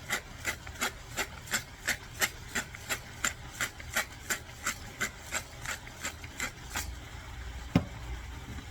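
Hand-twisted pepper mill grinding black peppercorns: a rhythmic rasping ratchet, about three strokes a second, that stops about seven seconds in, followed by a single sharp knock near the end.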